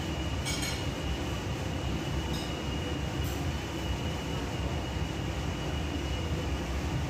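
Kitchen range-hood extractor fan running with a steady low whir and a thin high whine, with a few light clinks.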